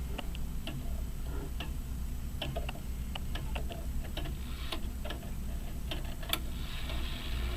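A Hermle grandfather clock movement ticking, with extra irregular clicks from the motion work as its minute hand is pushed round toward the quarter hour.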